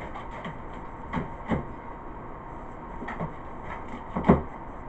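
Battery packs being handled in a cardboard box: a few knocks and light clicks as they are moved and lifted, the loudest knock near the end, over a steady faint hum.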